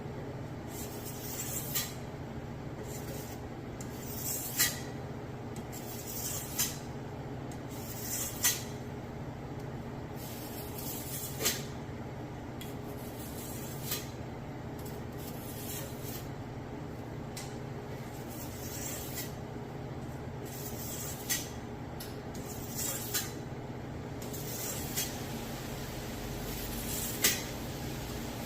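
Bone Tactical Space Cowboy machete blade being stroked across a fine sharpening stone: short hissing scrapes every second or two at an uneven pace, some ending in a sharp click, as the edge is touched up.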